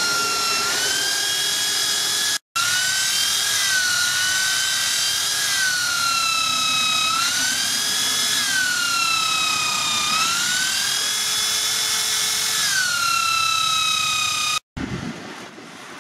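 Corded electric drill running with a high whine whose pitch dips and recovers every couple of seconds as it spins a wooden knife handle held in the hand. It drops out for a moment about two and a half seconds in and stops shortly before the end.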